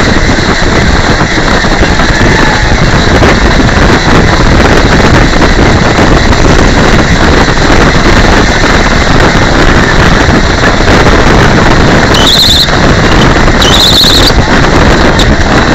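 Loud, steady noise of a pedal-powered race car at speed, heard from inside its shell: wind, tyre and road rumble and body rattle, overloading the on-board microphone. Two short high squeals come near the end.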